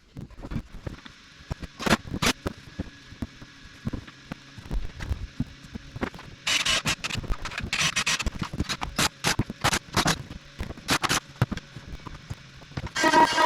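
Irregular scraping and sharp knocks from hand work, with a denser run of scraping about halfway through. Music starts right at the end.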